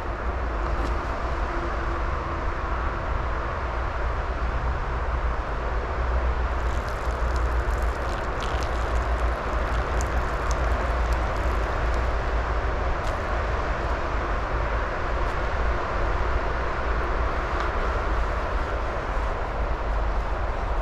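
Steady rain falling, with a low rumble underneath and scattered sharp ticks of drops hitting something close by, mostly in the middle.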